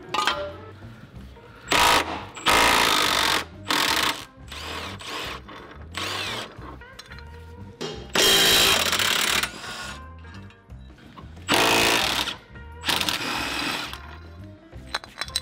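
Cordless Milwaukee M12 Fuel impact wrench hammering on the rusty rear subframe bolts of a Lexus IS300 in several bursts of about a second each. Background music with a steady low beat plays underneath.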